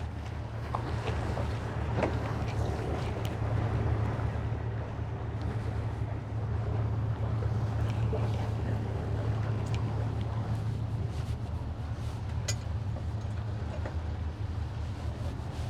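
Boat engine running steadily at low speed, a deep, even hum, slightly louder for a few seconds in the middle, with a few faint knocks.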